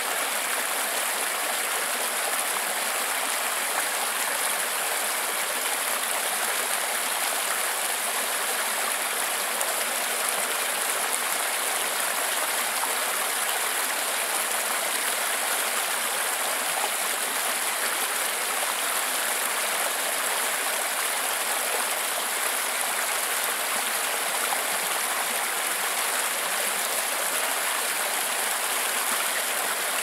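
Creek water spilling over rocks in a small cascade: a steady, even rush of running water.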